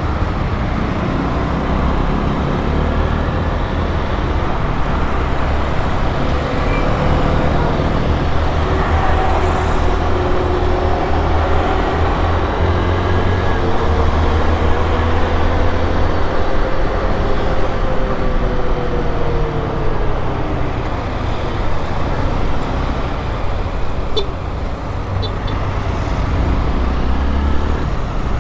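Honda XRE 190 motorcycle's single-cylinder engine running under way, its note rising and falling with throttle and speed, over a steady rush of wind and road noise.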